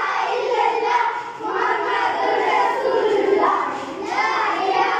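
A group of children chanting and shouting together in repeated phrases, each lasting about a second and a half.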